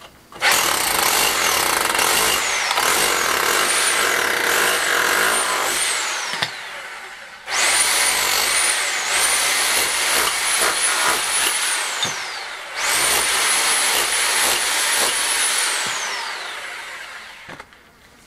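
Vevor electric demolition hammer in hammer-only mode with a flat chisel, at full speed, chipping render off a stone wall. It runs in three long bursts, and the motor's high whine climbs at the start of each burst and falls away when the trigger is let go.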